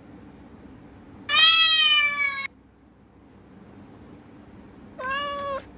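Cat meowing twice: a long, loud meow that falls slightly in pitch, then a shorter, quieter meow near the end, over a faint steady hum.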